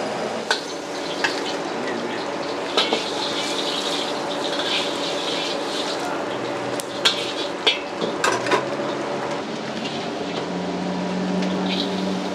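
Steel spatula scraping and clanking against a wok while noodles are stir-fried and sizzle over a charcoal fire. The sharp clanks come irregularly, most of them in a cluster about two-thirds of the way through.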